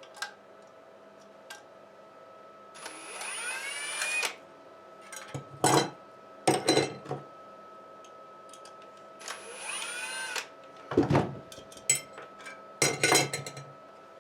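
A handheld power drill runs twice, about a second and a half each time, its pitch rising as it spins up. Each run is followed by several sharp knocks and clatters.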